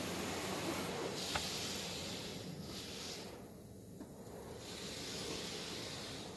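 Car wash water spray hitting the car's rear window and roof, heard as a steady hiss from inside the cabin. It eases off about halfway through, then builds again, with a single tick a little over a second in.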